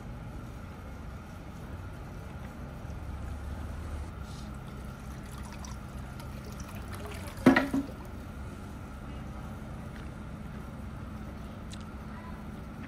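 Water trickling steadily from a bamboo spout into a stone water basin. Halfway through come two sharp knocks in quick succession, the first much louder.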